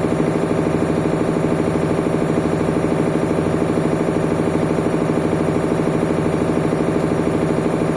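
Whirlpool washing machine running, a steady mechanical hum with a fast, even pulse.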